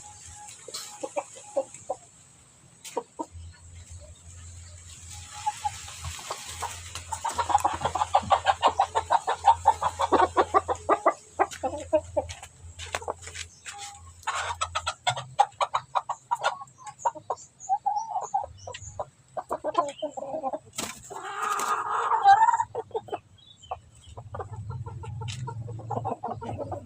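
A chicken clucking repeatedly, with a fast, dense run of clucks from about seven to eleven seconds in and scattered clucks after that.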